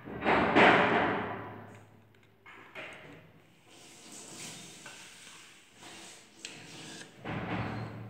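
Milk being poured into tall glasses, a noisy pouring sound that is loudest about half a second in and fades, with softer pouring and handling noise after it.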